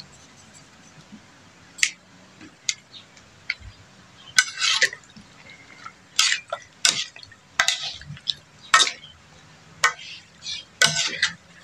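A plastic ladle and a metal spoon stirring catfish pieces in a little sauce in a metal wok, scraping and clinking against the pan in irregular strokes. A few isolated clicks at first, then busy from about four seconds in.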